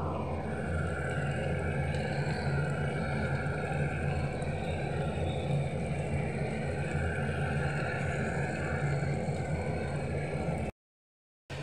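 A steady machine hum, whirring over a low drone, that cuts off suddenly near the end.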